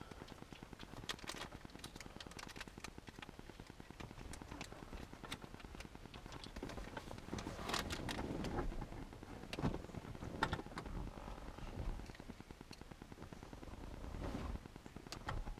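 Faint scattered clicks and rustles of small plastic parts being worked at, as someone tries to pry the car's interior light fixtures out.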